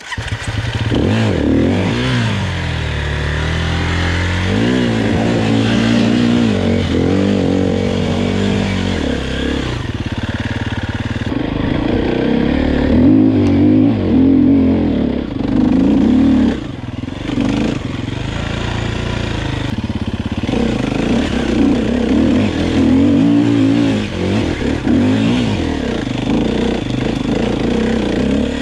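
Enduro motorcycle engine revving up and down continuously while it is ridden along a rough forest trail, heard from on the bike.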